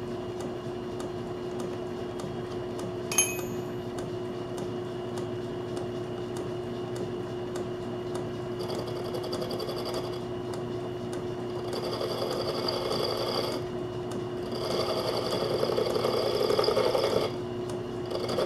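Metal lathe running with a steady hum, its spinning part cut by a lathe tool bit in four rough scraping passes in the second half, the loudest of them near the end. The bit keeps chewing up as it cuts. A single sharp click comes about three seconds in.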